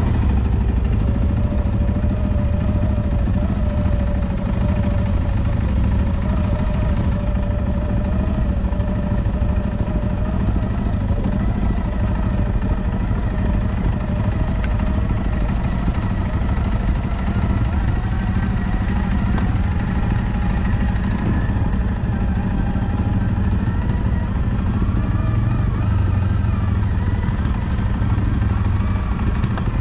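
CFMOTO CForce 625 ATV's single-cylinder engine running steadily at low revs as the quad crawls along at walking pace, with a wavering whine over the engine's drone in the first half.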